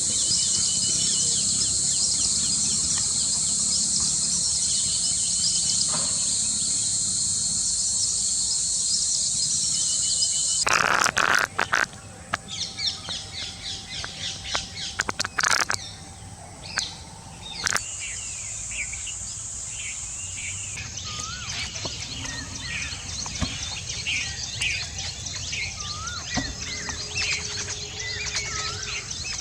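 A steady high-pitched insect drone for about the first ten seconds, then small birds chirping and calling in short repeated notes, some rising, over a fainter insect drone. A few sharp clicks come at the change, about eleven seconds in.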